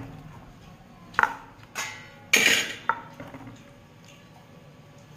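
Metal utensil knocking against a stainless steel mixing bowl: four sharp clinks over about two seconds, the third the loudest with a short ring.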